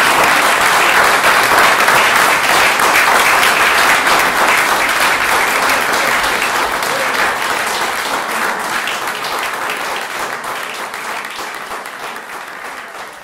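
An audience applauding, a dense steady clapping that slowly fades out over the second half.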